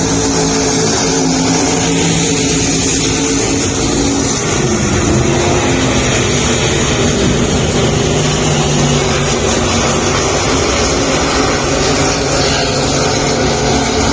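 Several race car engines running at once, loud and steady, their overlapping engine notes wavering up and down in pitch.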